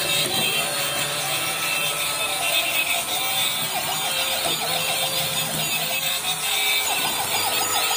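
Electronic siren warbles from battery-powered toy police trucks, several overlapping and repeating about twice a second, over a steady motor whir.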